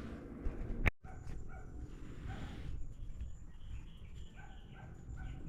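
Repeated short animal calls in the distance, over a steady high buzz of insects, with a sharp click about a second in.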